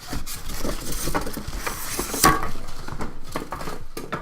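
Cardboard box and packaging being handled, irregular rustling and light knocks, with one louder bump about two seconds in.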